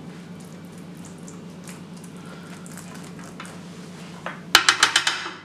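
Tomato sauce being spread with a spoon over pizza dough in a baking tray: faint soft smearing over a low steady hum. About four and a half seconds in comes a quick run of loud, sharp clinks of a spoon against dishes.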